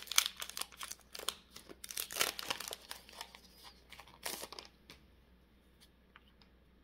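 Foil Pokémon booster pack wrapper being torn open and crinkled: a dense run of sharp crackles that stops about five seconds in, followed by a few faint ticks.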